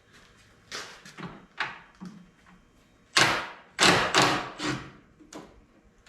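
Irregular knocks and bangs from work on the Jeep's frame, about ten in all, each with a short ringing tail. The loudest come a little past three seconds and around four seconds in.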